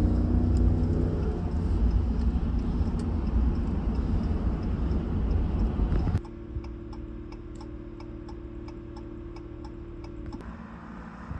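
Vehicle on the road: a loud, steady engine and road rumble. About six seconds in it cuts suddenly to a quieter steady hum with a run of evenly spaced ticks, like a turn signal clicking inside a cab.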